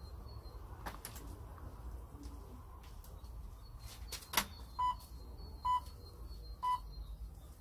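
Electronic round timer giving three short, even beeps about a second apart in the second half: the countdown to the start of the next round. A couple of sharp clicks come before them, the loudest about halfway through.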